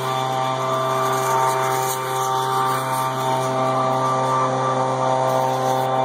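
A steady engine drone at one unchanging pitch.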